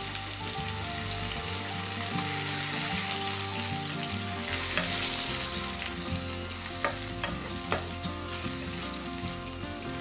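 Cumin, white sesame seeds, ginger and split chana dal sizzling steadily in hot oil in a kadai, the tempering stage, stirred with a wooden spoon. A few sharp clicks sound in the middle.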